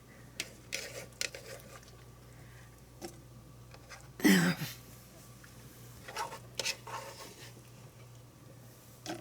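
Quiet kitchen handling of sliced cucumbers: scattered light taps and clicks, with a louder brief knock about four seconds in and a few more near the end, over a faint steady low hum.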